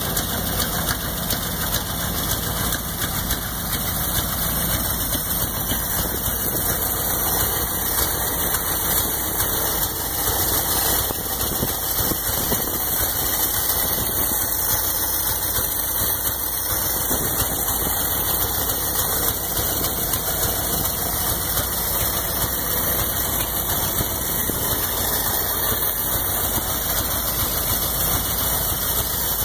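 1975 Dodge pickup truck's engine idling steadily, heard close up over the open engine bay.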